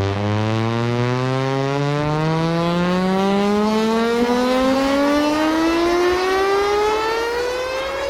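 Synthesized siren sound effect rising slowly and steadily in pitch, one tone rich in overtones, over a bed of hiss.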